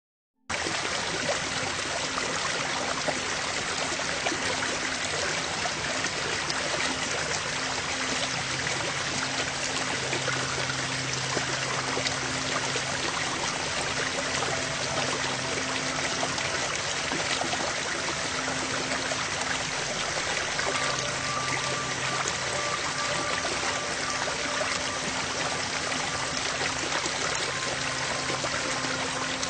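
Steady rushing sound of running water, like a stream, with faint soft sustained tones coming and going beneath it.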